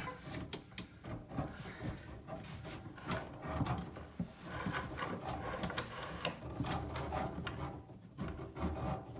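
Irregular knocks, scrapes and rubbing from someone shifting about and handling things inside a cramped wooden sink cabinet.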